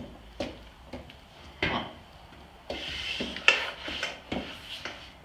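Handling noise: a series of sharp knocks and clicks, with a scraping rub from about three to four seconds in and the loudest knock partway through it.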